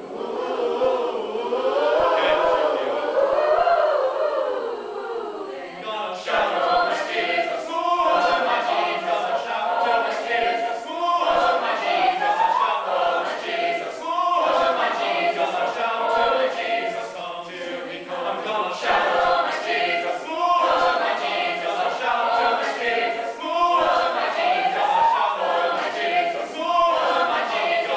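Mixed-voice high school choir singing a cappella. It opens on swelling, held chords, then moves about six seconds in into a fuller, brighter passage sung in short rhythmic phrases.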